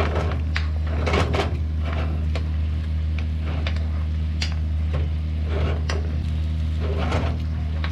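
A utensil stirring pork ribs in braising liquid in a pan, with scattered clinks and knocks against the pan, over a steady low hum.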